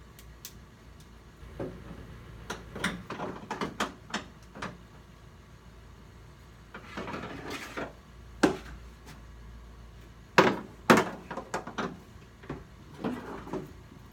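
Ratchet tie-down straps being handled over a water tank in a cargo van's metal load bay: scattered clicks and clanks of the strap hooks and buckles, a longer rasp of webbing being pulled about seven seconds in, and two loud knocks about ten and eleven seconds in.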